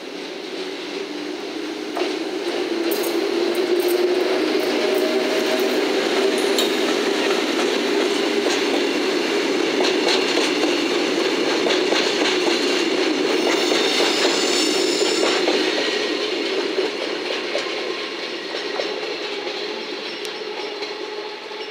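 EF65 electric locomotive passing close at low speed, the growl of its nose-suspended traction motors mixed with wheels clattering over rail joints, followed by the flat wagons carrying rails. The sound builds over the first few seconds, holds steady, and eases off in the last few seconds.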